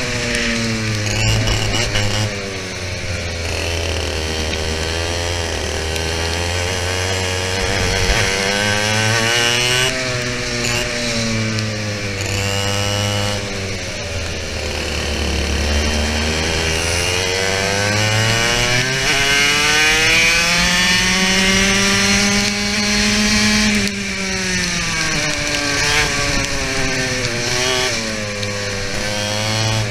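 TKM BT82 100cc two-stroke kart engine at racing revs, heard onboard, its pitch climbing and falling in long sweeps every several seconds as it accelerates and lifts through the laps.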